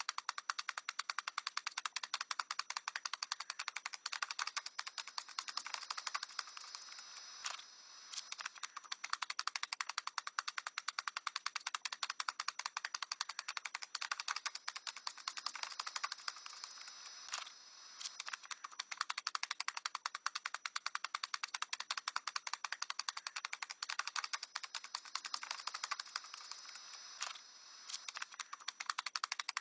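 A parrot tap dancing: a fast, steady run of light taps on a hard surface, broken by a short pause about every ten seconds.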